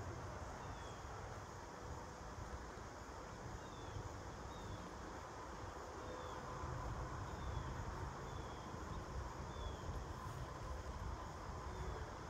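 Outdoor field ambience: a steady low rumble, with faint short high chirps falling in pitch and repeating every second or so.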